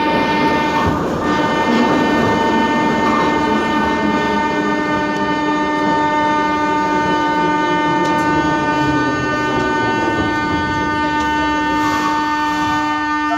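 A steady electrical hum inside a metro car, several held tones with a high whine on top, over the rumble and clatter of the running train. The source of the hum is unidentified.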